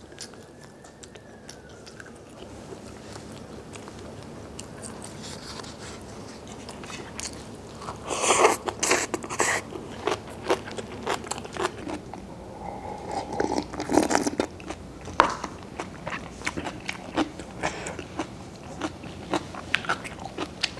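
Instant cup noodles slurped up off chopsticks about eight seconds in, then close, wet chewing with many short mouth clicks and smacks. The first several seconds hold only faint room hiss.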